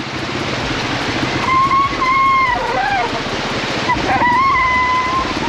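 Honda XR100R's single-cylinder four-stroke engine running at low speed while the bike splashes through shallow rushing water over rocks. Two long, steady high-pitched tones sound over it, one about a second and a half in and another about four seconds in, the first falling off at its end.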